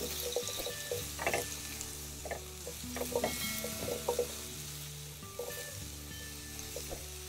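Sliced mushrooms sizzling in oil in a nonstick frying pan as they are sautéed, turned with tongs that click and scrape against the pan now and then.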